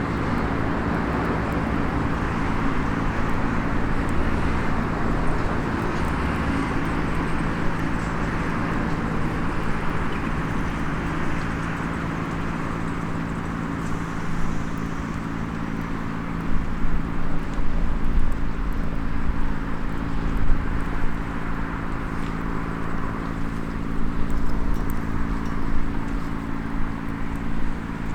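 Outdoor seaside ambience dominated by a steady low mechanical hum, with faint crackles from a small wood fire in a SOTO mini fire stand. Uneven low rumbling comes and goes from about halfway through.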